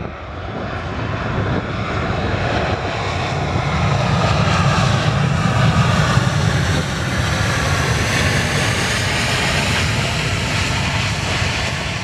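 Boeing P-8A Poseidon's twin CFM56 turbofans running during the landing roll. The jet noise builds to its loudest about halfway through as the aircraft passes, then eases slightly, with a wavering whoosh in the upper range.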